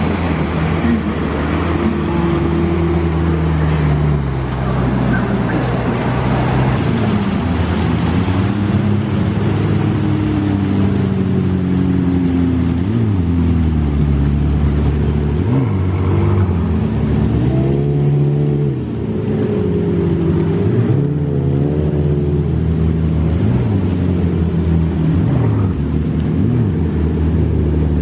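Supercar engines running at low speed as the cars roll past one after another: a Ferrari 458 Italia V8, a Lamborghini Murciélago V12 and a McLaren 12C twin-turbo V8. Repeated revs rise and fall in pitch, most of them through the middle.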